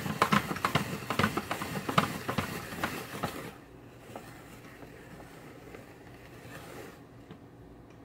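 Hand-crank vertical spiralizer cutting yellow squash into noodles: rapid, closely spaced crunching and clicking of the blade and crank for about three and a half seconds, then much quieter for the rest.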